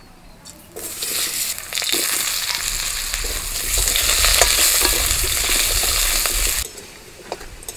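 Potato wedges sizzling as they fry in hot oil in a metal kadai, turned and scraped with a metal spatula, with scattered clicks of the spatula on the pan. The sizzle starts about a second in and cuts off suddenly near the end.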